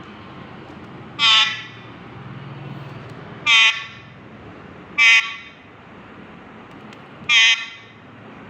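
Parrot imitating a vehicle horn: four short, loud honks, each a fraction of a second long, spaced about one and a half to two and a half seconds apart.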